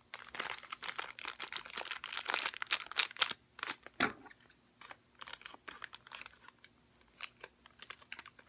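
Crinkling and crackling of a plastic blind-bag wrapper being handled and worked open by hand. The small crackles come thick and fast for the first few seconds, then thin out, with one louder crackle about four seconds in.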